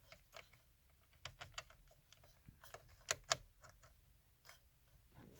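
Light, scattered clicks and taps of hand tools being handled as a 14 mm socket is picked out and fitted, coming a few at a time with the loudest a little past three seconds in.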